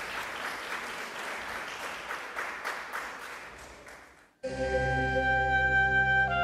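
Audience applause fading away over about four seconds, then a moment of silence and instrumental music begins: long held notes over a steady low drone, the melody moving to new notes near the end.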